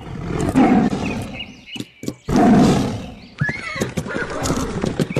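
A tiger roaring twice, the second roar louder, followed by shorter animal calls.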